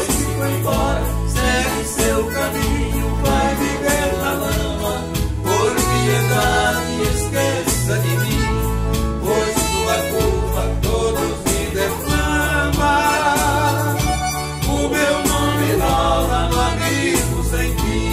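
Instrumental passage of a song played live on piano accordion, nylon-string acoustic guitar and a Korg Pa300 keyboard, with a steady beat and bass line.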